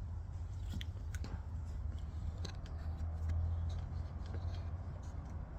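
Scattered, irregular light clicks and taps of a socket and hand tools working at the petcock bolts of a motorcycle fuel tank, over a steady low hum.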